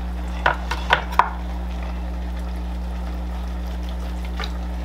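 Knife and hands working a boiled whole chicken on a wooden cutting board: three sharp taps in quick succession in the first second and a half, and a faint one near the end, over a steady low hum.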